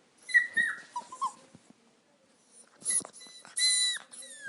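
Dog whimpering in high-pitched cries: a few short cries in the first second or so, then a longer whine about three and a half seconds in that falls in pitch at its end.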